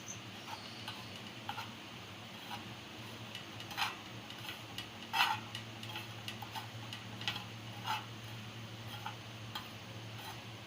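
A spoon tapping and scraping against a frying pan while stirring melting sugar and ghee: irregular light clicks with a few louder knocks, over a steady low hum.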